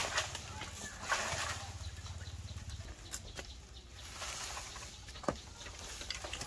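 A long green bamboo pole scraping and rustling through dry grass and leaf litter as it is dragged along a dirt path, in uneven bouts, with one sharp knock about five seconds in.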